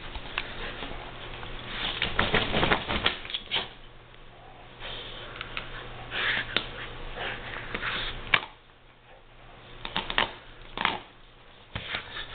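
Pit bull chewing and tearing at a plush stuffed toy: irregular crunching and rustling of fabric and stuffing, mixed with snuffling. It goes quieter after about eight seconds, with a few more bursts near the end.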